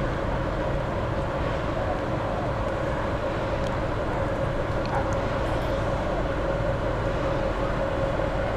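Steady outdoor city background noise with a constant hum running under it.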